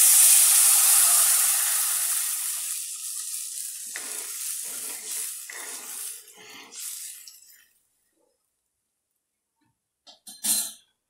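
Water poured into a kadai of hot oil and tempered spices, hissing and sizzling loudly at once and dying away over about three seconds. A steel ladle then stirs the rasam for a few seconds, and there is a brief clatter near the end.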